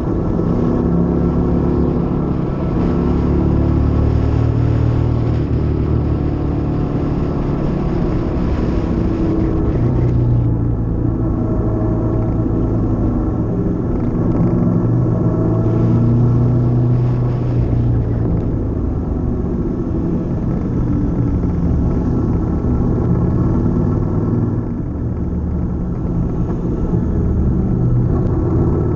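Honda CTX700's parallel-twin engine running steadily under way, its note shifting slightly up and down. Rushing wind and road noise sits over it and eases about ten seconds in.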